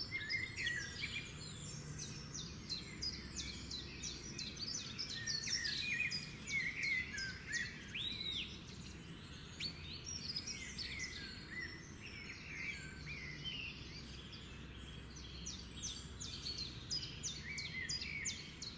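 Several songbirds chirping and singing with overlapping calls, over a steady low background hum.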